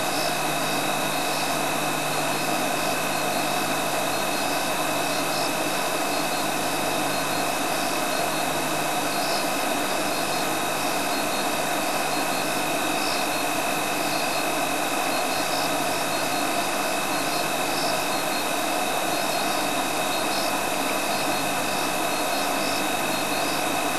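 Safari vehicle's engine idling steadily under a constant hiss, with two steady high tones and a faint high chirp repeating about once a second.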